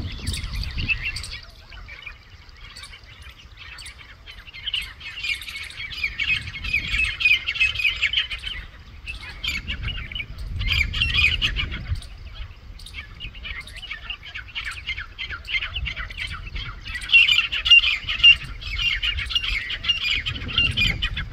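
A flock of small birds chattering and squawking busily together, in several loud spells, with low rumbling at times.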